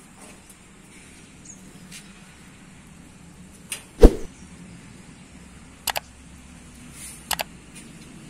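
A few sharp clicks and knocks over a low steady background, the loudest a thump about four seconds in, followed by two quick double clicks later on.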